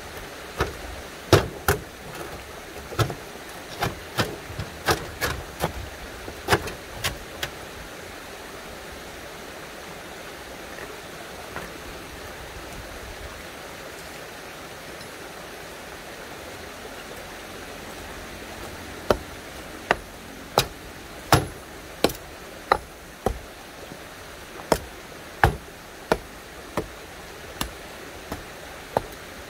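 Stones being knocked into place in a dry-stone wall: an irregular run of sharp knocks as stones are set, a pause of about ten seconds, then a hammer striking the stones in a steady series of blows, about one and a half a second.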